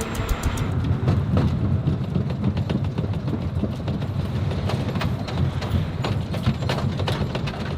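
7-ton military truck rolling along with a heavy low rumble and rapid irregular knocking, just after one of its tires has blown.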